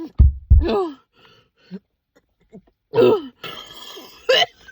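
A woman coughing hard, her throat burning from spicy Takis chips: two sharp coughs and a strained groan at the start, then another raspy coughing fit about three seconds in.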